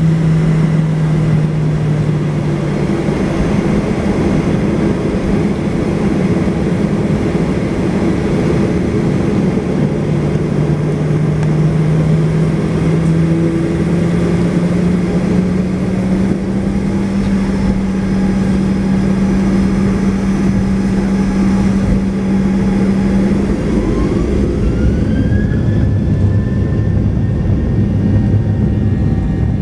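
Boeing 737 jet engines heard from inside the cabin: a steady hum and rush while the aircraft taxis. About 24 s in, a whine rises and then holds, with a deeper rumble joining, as the engines spool up for the takeoff roll.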